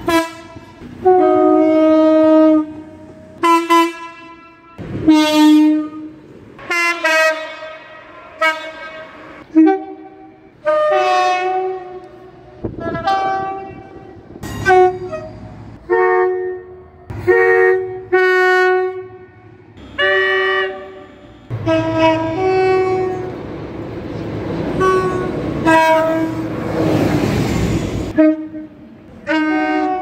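Train horns sounding in quick succession: a long string of short blasts of different pitches, one after another. From about 22 to 28 seconds in, the rushing noise of a passing train runs under the horns.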